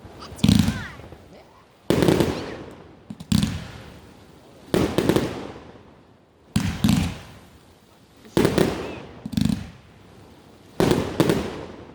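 Fireworks going off in a steady series: a loud bang about every second and a half, some coming in quick pairs, each one fading away over about a second.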